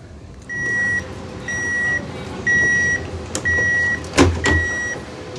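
Door-closing warning chime on a CRRC commuter train: five steady high beeps, each about half a second long, one a second. Near the end the sliding doors knock shut, the loudest sound.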